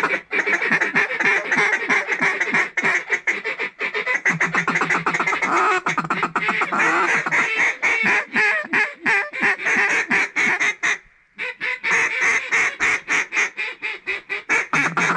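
Mallard duck calls blown hard in a rapid, continuous run of quacks and chatter, with one short pause about eleven seconds in.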